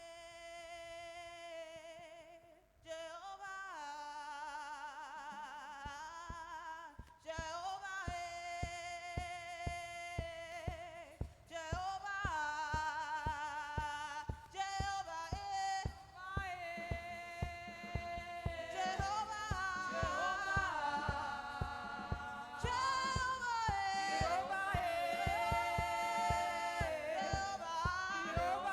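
Gospel praise chorus: a singing voice leads the song, and a steady drum beat comes in about seven seconds in and continues under the singing.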